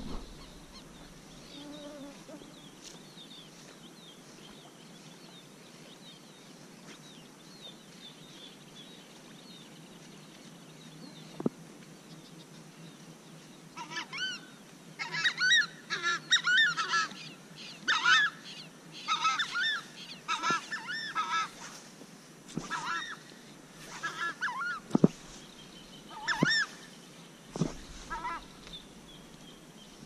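Wetland birds calling: faint calls at first, then from about halfway through a long run of loud, repeated calls, several birds overlapping. A couple of sharp clicks stand out, the loudest a little before the calls die away.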